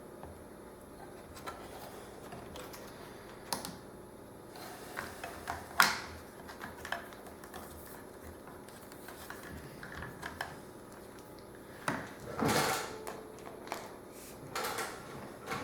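Scattered light clicks and knocks of parts being handled on a panel saw/router table, with two short sliding scrapes near the end.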